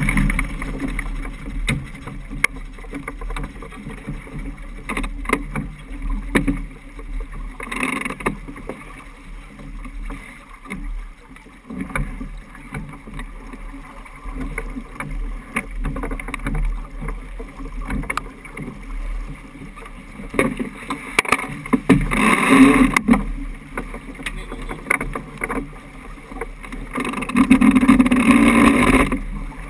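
Water rushing and splashing along the hull of a Niagara 26 sailboat moving under sail through choppy water, with several louder surges of spray, the longest near the end.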